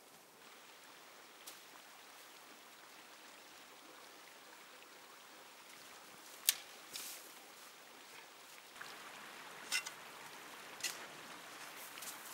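Snow crunching as it is packed by hand and scooped with a plastic snow shovel: about six short, sharp crunches from about halfway through, the sharpest one first. A faint steady hiss underneath.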